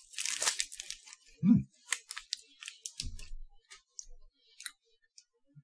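Chewing a crunchy Umaibo puffed corn stick: a burst of crackling crunch at the start, then a run of short crisp crunches, with a brief low hum about a second and a half in.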